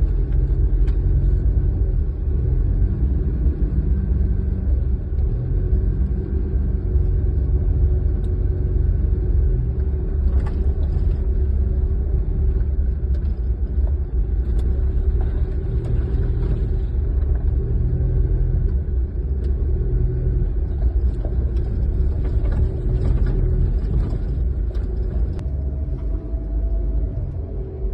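Small car driving: steady low engine and road rumble with a faint steady drone above it and a few faint ticks.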